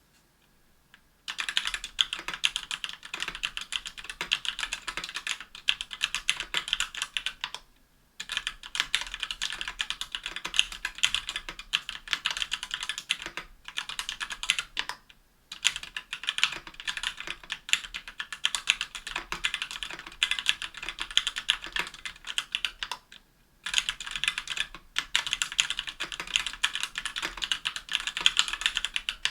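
Fast typing on a KBDfans Tofu60 60% mechanical keyboard with an aluminum case and plate, stock Everglide Amber Orange linear switches and GMK keycaps: a dense stream of key clacks that starts about a second in and breaks off three times for a moment.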